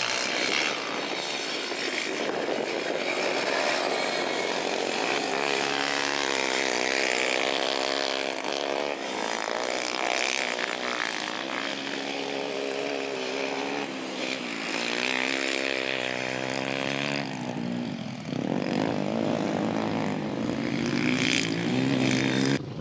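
Sport quad (ATV) engine revving hard, its pitch repeatedly climbing and dropping as the rider accelerates and lets off.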